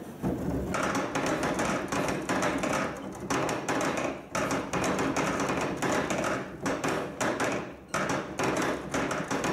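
Wooden model of a hemp-beating mill's stamping works running. Cams on the turning shaft lift the wooden stampers, which drop back in a steady run of rapid, overlapping wooden knocks.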